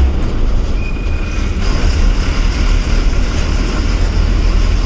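Bus diesel engine and road noise heard inside the driver's cab while driving, a loud, steady deep rumble. A brief thin high tone sounds about a second in.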